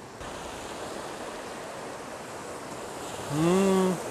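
Steady sea surf and wind on the shore. Near the end a man, chewing, gives a short pleased "mmm" that rises, holds and drops, lasting under a second.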